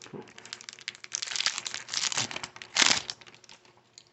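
Foil wrapper of a trading-card pack crinkling and rustling as it is opened, with the loudest crackle about three seconds in.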